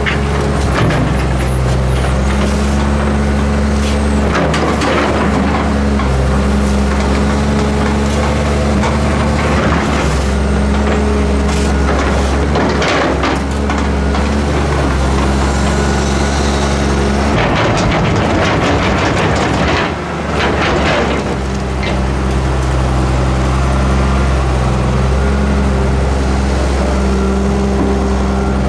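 Hyundai Robex 290LC-3 excavator's diesel engine running steadily under working load. Several rough scraping and clattering noises come from the bucket digging sand in the barge's steel hold.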